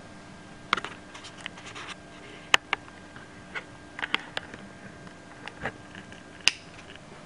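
Camera handling noise: scattered clicks and knocks as the camera is taken off its mount and moved, with one sharp knock about two and a half seconds in and another near the end.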